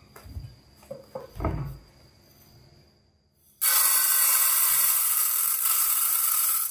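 A few soft knocks, then uncooked rice grains pouring from a bowl into a metal rice-cooker pot: a steady hiss for about three seconds that stops abruptly.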